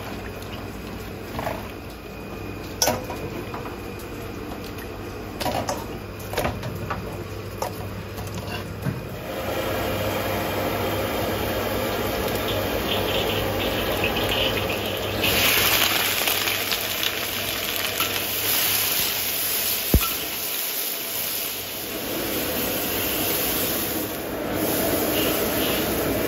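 Pork trotter pieces squished and sloshed by a gloved hand in a steel tray of water, with a few knocks. Then hot oil hissing in a wok, turning to a loud sizzle about halfway through as sliced ginger and wood-ear mushroom fry while a ladle stirs.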